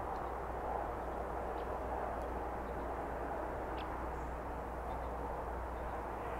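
Steady rushing outdoor ambient noise with a low rumble underneath, and a few faint, brief high chirps scattered through it.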